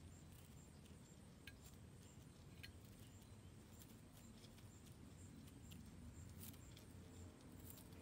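Near silence: a faint low outdoor rumble with a few soft, scattered ticks.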